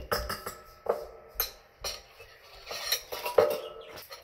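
Metal spoon clinking and tapping against a ceramic bowl several times as ground spices are spooned in, some strikes ringing briefly.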